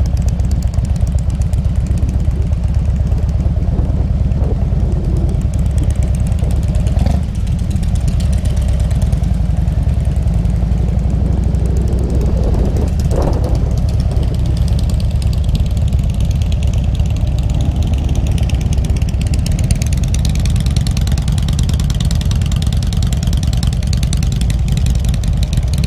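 Harley-Davidson Road King's V-twin engine running at low revs with an even low pulsing as the bike rolls slowly across a paved lot.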